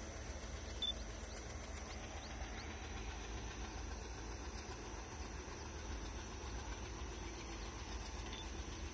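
Faint, steady outdoor background noise with a low rumble, and one brief click about a second in.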